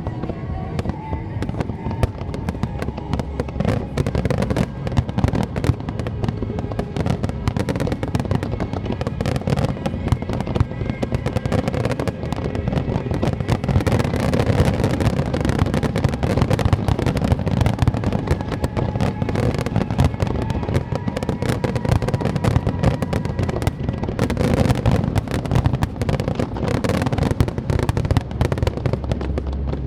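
Aerial fireworks display going off in a dense, unbroken run of bangs and crackles.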